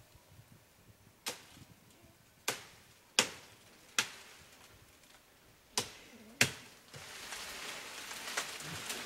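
Six sharp knocks at uneven intervals, each with a brief ring-off. About seven seconds in, a steady high hiss sets in.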